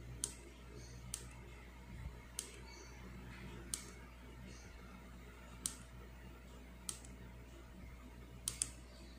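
Sharp clicks of the small tactile push buttons on a DC voltage monitoring relay board being pressed one at a time, about eight presses at uneven intervals, two close together near the end, while a voltage threshold is being set.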